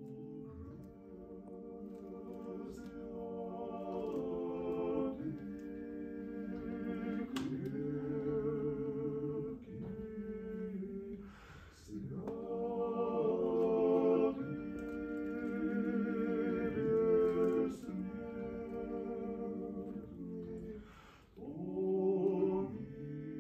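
Male vocal trio singing a cappella in close harmony: long held chords sung in phrases, with short breaks about twelve seconds in and again near the end.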